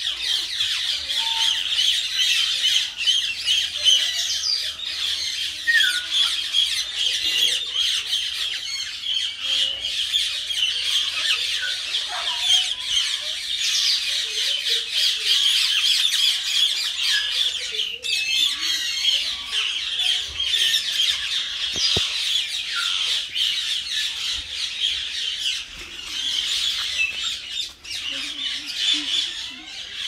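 Common myna calling nonstop in a long run of harsh, rapid squawking chatter.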